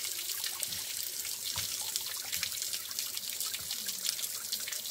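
Thin stream of spring water falling from a rock face and splashing onto stone and a bather's legs: a steady trickle with many small splashes.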